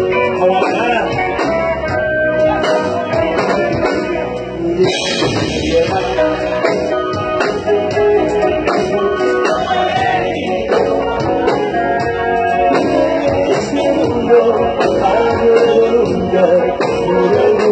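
Live grupera band playing loud, steady music in which a guitar can be heard.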